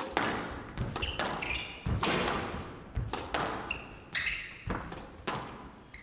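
Squash rally: a steady exchange of sharp hits as the ball strikes rackets and the front wall, roughly every half second to second, each with a short echo. Two brief high squeaks of court shoes on the wooden floor, about a second in and about four seconds in.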